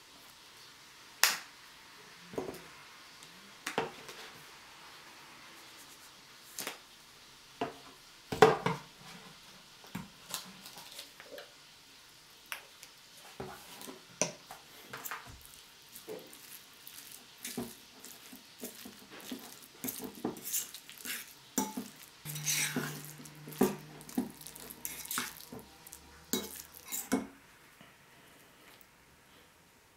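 Metal fork clinking and scraping against a ceramic bowl while mashing hard-boiled eggs with mayonnaise: irregular taps, closer together in the second half, stopping near the end.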